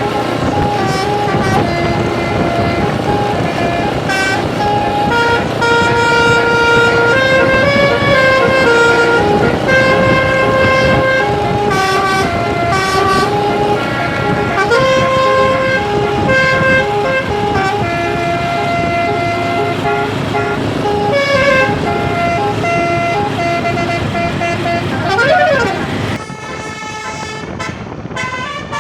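Basuri 12-note telolet horn, a bus's multi-trumpet musical horn, playing a tune of stepped notes over the running engine. Near the end a siren-like wail rises and falls, then the sound drops quieter.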